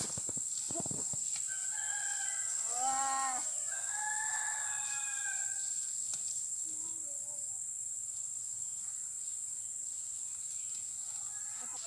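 A rooster crowing once, starting about two seconds in: an arching call followed by a long held final note, lasting about three seconds in all.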